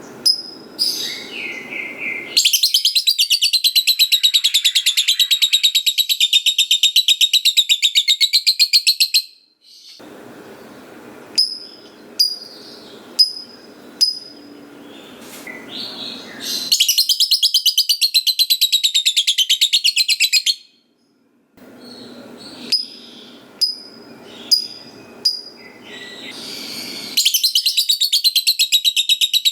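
Lovebird giving the long, rapid chattering call that fanciers call ngekek panjang. It comes in three bouts of quick, evenly repeated high notes, each lasting several seconds, with single sharp chirps between the bouts.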